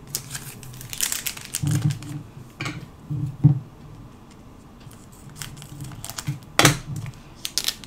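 Foil Pokémon card booster packs crinkling as one is pulled from the box and handled. Near the end, scissors cut the top of the pack open with a sharp snip.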